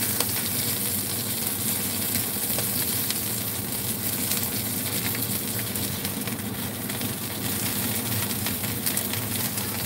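Mayao fish pieces sizzling and crackling as they pan-fry in a little cooking oil in a nonstick wok, with soft scrapes of a silicone spatula as the pieces are turned and moved. A steady low hum runs underneath.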